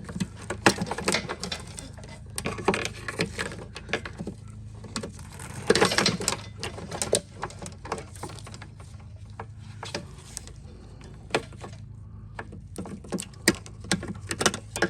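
Irregular clicks, knocks and scraping as a lawn mower's old control cable and its plastic fitting are worked loose from the handle by hand, with a busier patch of knocking about six seconds in. A steady low hum runs underneath.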